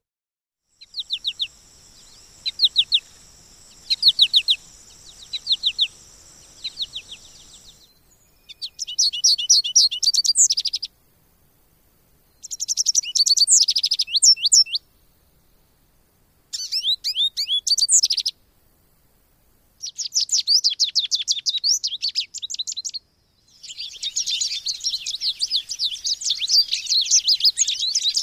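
American goldfinch song: runs of rapid, high twittering and chirping notes in several separate stretches broken by short silences. The stretches start as short chirp groups and end in a long, dense twitter. A steady high hum lies under the first few chirp groups.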